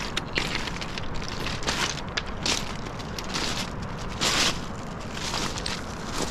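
Footsteps crunching on a beach of loose rounded pebbles, about one step a second.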